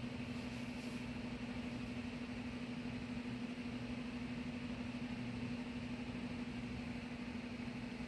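A steady low mechanical hum, unchanging throughout.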